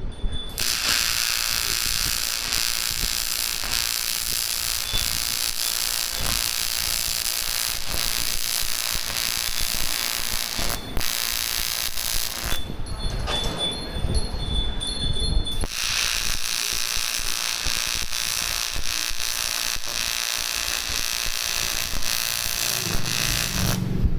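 Aluminium TIG welding arc buzzing and hissing steadily in two long runs, with a break of about three seconds near the middle.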